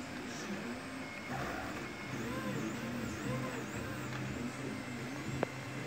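CoreXY 3D printer's stepper motors whining in repeating rising-and-falling tones as the hotend traces circular paths, over the steady hum of its cooling fans. One sharp click near the end.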